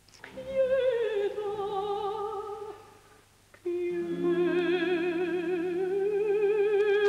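A solo singer with a classically trained, operatic voice and wide vibrato holds long notes. The first note eases slightly downward and fades out. After a brief pause, a lower note is held steadily.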